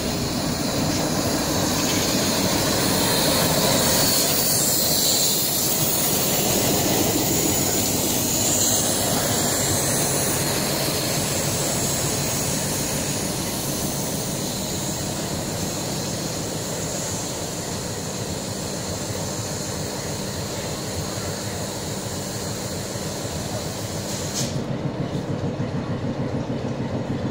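Metre-gauge passenger coaches rolling slowly past, with a high squeal from the wheels in the first half. Then the YDM4 diesel locomotive draws up and comes to a stand, its engine running steadily.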